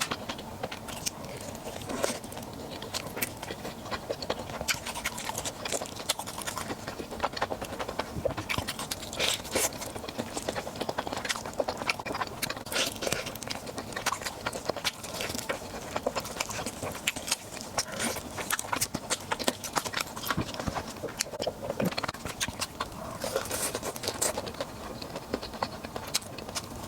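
A person eating close to the microphone: irregular chewing and wet mouth smacks, with many sharp clicks and crunches coming in quick, uneven bursts.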